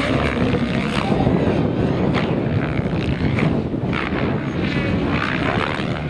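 Electric Minicopter Diabolo model helicopter in aerobatic flight: its rotor whirring and swooshing, with gliding rises and falls in pitch as it manoeuvres. Strong wind gusts over the microphone.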